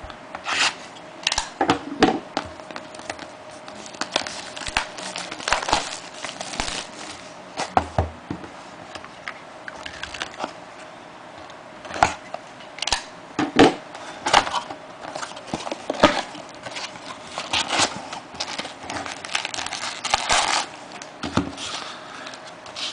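A sealed trading-card box being torn open: plastic wrap and packaging crinkling and ripping in irregular bursts.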